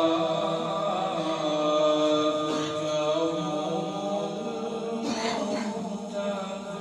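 A man reciting the Quran (tilawat) in a slow melodic chant, drawing out long held notes, amplified through a microphone.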